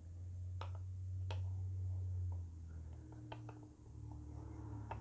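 A few light metallic clicks of revolver parts being fitted together as the cylinder and crane are slid back into place, over a low steady hum that is loudest in the first half.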